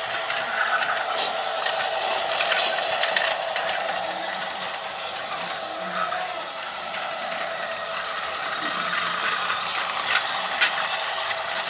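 Battery-powered Lego Duplo toy train running on its plastic track: a steady whirring of the small motor and gears, with a few scattered clicks and light clatter.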